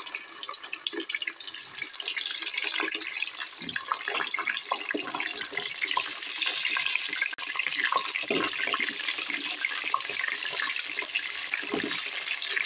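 Chicken thigh pieces sizzling and crackling steadily in hot oil in a pot as more pieces are laid in, with a few soft knocks along the way.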